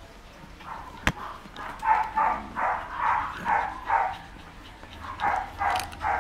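Shih Tzu making short, evenly repeated calls, about two a second, starting about two seconds in. A single sharp click comes about a second in.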